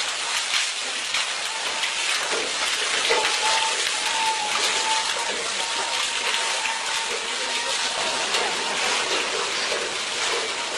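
Water gushing and splashing steadily from a well pump.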